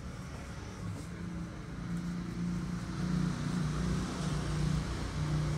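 Low engine drone from a motor vehicle that grows steadily louder.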